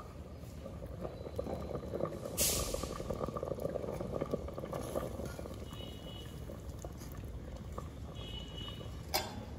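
Vegetable stew bubbling at a steady simmer in an uncovered clay pot, a dense soft crackle of small bubbles. A brief hiss comes about two and a half seconds in, and a sharp click near the end.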